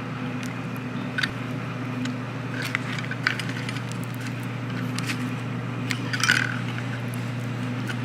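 Light clicks and taps of small parts being handled and fitted as the greased gear goes back into a Saab power antenna unit, over a steady low hum. The loudest tap comes about six seconds in.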